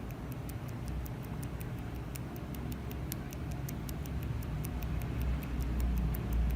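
Microblading hand tool's needles tapping and flicking on eyebrow skin, a fast, regular run of light, sharp ticks at about five a second, as pigment is stippled in for ombré powder-brow shading.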